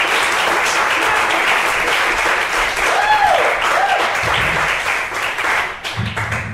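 A small audience applauding a comedian's introduction, with a couple of short whoops about three seconds in. The clapping thins out and dies away over the last second or so.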